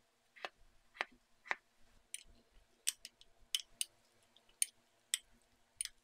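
A series of about a dozen short, sharp clicks and taps at irregular intervals, roughly two a second. The first few are duller and the later ones brighter.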